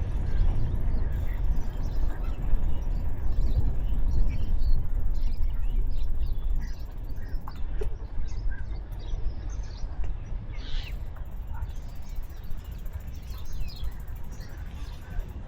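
Wind rumbling on the microphone while cycling, with birds chirping here and there, one call sliding downward about ten seconds in.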